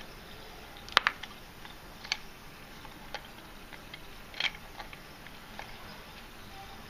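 Sparse small clicks and taps from hands working the filler on top of an Otona no Kagaku toy V-twin steam engine's boiler as carbonated water is added. The loudest is a sharp double click about a second in. The engine gives no hiss and does not run: the gas from the carbonated water and Mintia tablets is not building any pressure.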